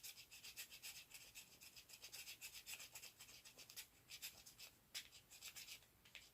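Faint, quick repeated scraping strokes: the coating of a scratch-off card being scratched off with a hard edge.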